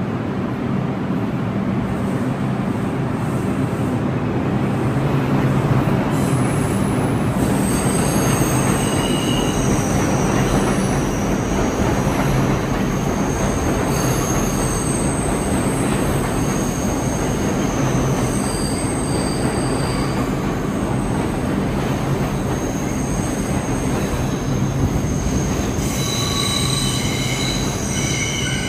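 New York City subway train moving on the rails with a steady loud rumble. High-pitched wheel squeal comes and goes from about eight seconds in, with several squeal tones at once, and is strongest near the end.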